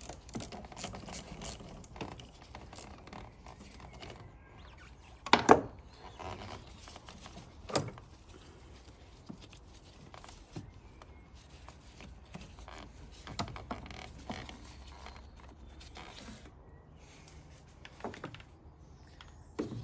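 Scattered clicks and light clunks of a wrench and a car battery's positive terminal clamp being worked loose and lifted off the post, with one sharp knock about five and a half seconds in and a smaller one near eight seconds.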